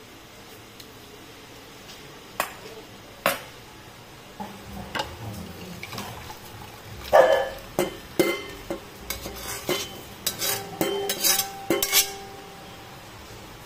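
Metal ladle clinking and scraping against a pan and a ceramic serving bowl as a shrimp and bitter-gourd stir-fry with its sauce is spooned out. A few sharp clinks at first, then a busier run of clinks and scrapes in the second half, some with a brief ring.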